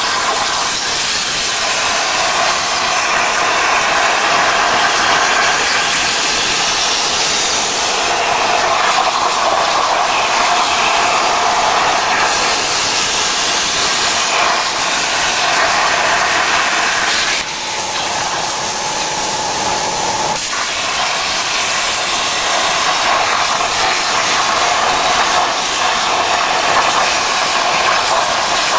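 Plasma torch of a portable CNC cutting machine cutting steel plate: a loud, steady hiss of the arc. It drops briefly and changes character about two-thirds through, then returns to the same steady hiss.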